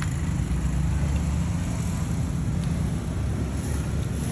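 Steady low rumble of outdoor street noise with a faint engine-like hum.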